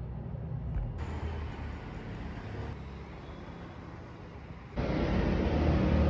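City traffic noise: a steady hum of passing vehicles that changes abruptly about a second in and again near the end, where it gets louder.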